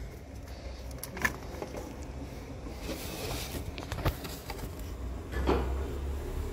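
Hand work under a car's engine: a few light knocks and metallic clicks over a low rumble of handling noise.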